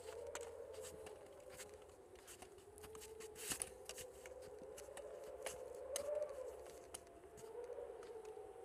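A low, wavering, howling drone, with irregular crunching steps through snow over it.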